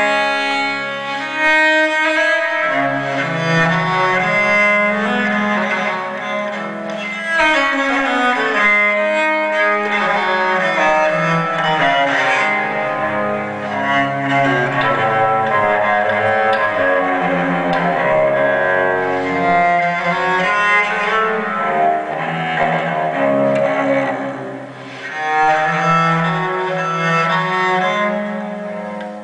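Bowed-string music led by a cello, with held low notes under higher string lines, played back through a home-made double-cone loudspeaker.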